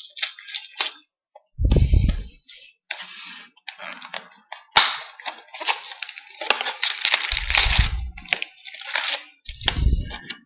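Crinkling and tearing of plastic wrap and cardboard as a sealed hockey card box is unwrapped and opened by hand, in uneven crackly bursts with a few sharp clicks. Three dull thumps of the box against the table come about two seconds in, near eight seconds and near the end.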